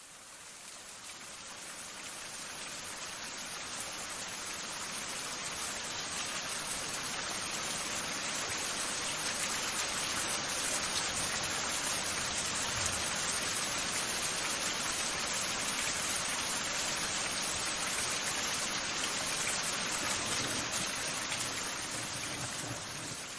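Steady rain falling, an even hiss-like patter that fades in over the first few seconds and fades out near the end.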